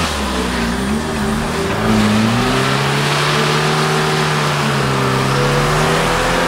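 Car engine revving hard, its pitch wavering over the first couple of seconds and then held at steady high revs, under load while the vehicle tries to climb out on slippery off-road ground. A steady hiss runs beneath it.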